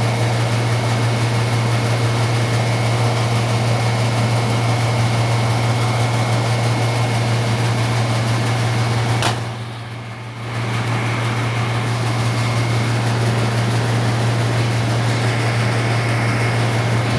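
Refrigeration compressor running with a steady low hum and a faint whine, on a system with acid-contaminated oil that has just had a suction-line filter fitted. About nine seconds in a click is followed by a dip in the sound for about a second before the running comes back.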